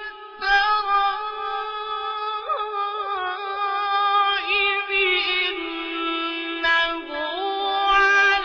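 A high voice chanting long, drawn-out notes with wavering melodic ornaments, in the style of melodic Quran recitation.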